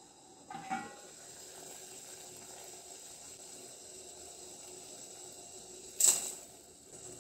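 A steel plate lid clinks and rings briefly as it is lifted off a pot, then water boils steadily in the steel pot. About six seconds in, salt tipped from a wooden spatula hits the boiling water with a short, loud burst of sizzling that dies away within half a second.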